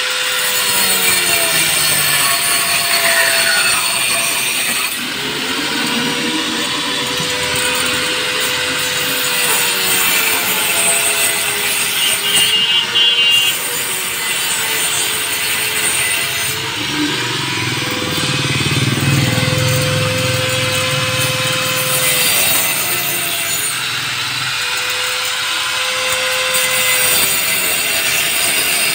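Handheld electric power tool cutting the edge of a wooden speaker-box panel: a continuous motor whine that sags and recovers in pitch as the cutter bites, over a gritty cutting noise.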